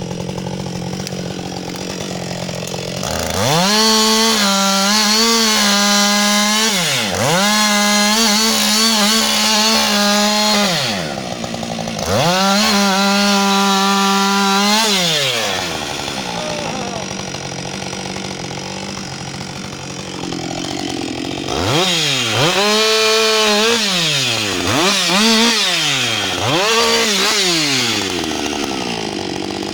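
Husqvarna 560XP two-stroke chainsaw cutting into a standing tree trunk. It runs in three long spells at full throttle, each broken by brief drops in revs, and settles back to idle between them. Near the end it gives a series of short revs before idling again.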